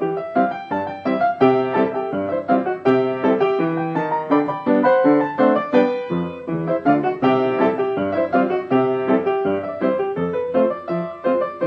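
Solo piano playing a brisk, busy tune of quick running notes, silent-film-style accompaniment.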